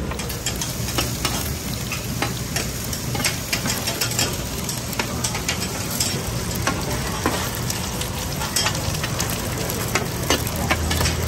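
Pan-fried dumplings sizzling and crackling in oil on a large round flat griddle, with a metal spatula scraping and clicking against the pan as it slides under them.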